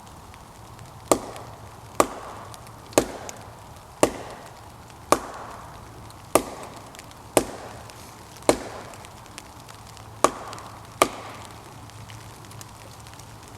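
Sharp, steady blows splitting a piece of wood: ten strikes about one a second, each with a short ring, with a brief pause before the last two.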